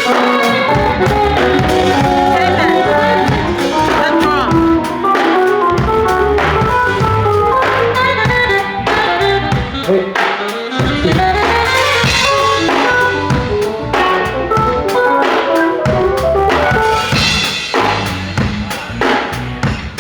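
Drum kit played with a band or backing track: kick, snare and cymbals over bass and a pitched melodic part. The low end drops out briefly near the start, about five seconds in and about ten seconds in.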